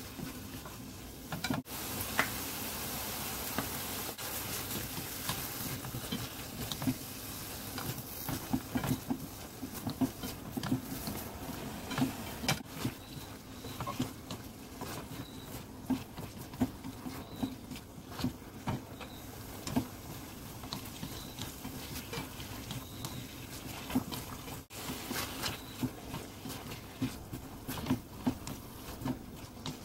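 Sweet potato stems sizzling in doenjang sauce in a stainless steel pan as they are stir-fried, tossed with wooden chopsticks and a spatula that click and scrape against the pan many times. The sizzle is brightest in the first few seconds.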